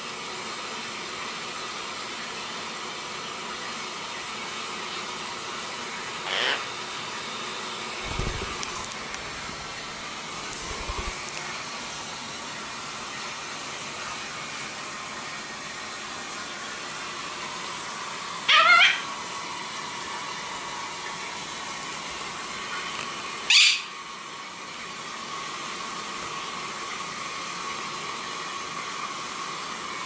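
Blue quaker parrot (monk parakeet) giving three short, sharp calls that rise in pitch. The first, about six seconds in, is faint; two loud ones come about two-thirds of the way through. A steady hiss runs underneath.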